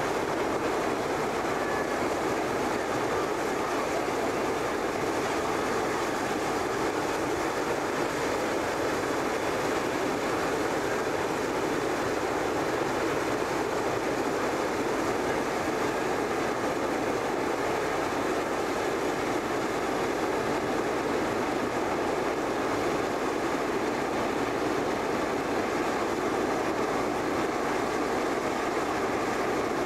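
Hot-air balloon propane burner firing in one long continuous blast, a steady roar without a break, as the balloon is hot-inflated and the basket swings upright.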